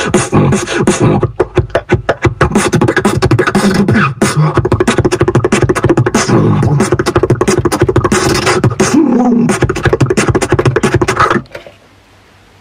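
Solo beatboxing: a fast, dense run of mouth-made drum sounds and clicks, stopping abruptly about eleven seconds in as the showcase ends.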